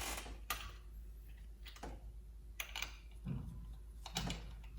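A few light, scattered metal clicks and knocks as spark plug sockets are handled and sorted through, with a couple of duller thumps in the second half.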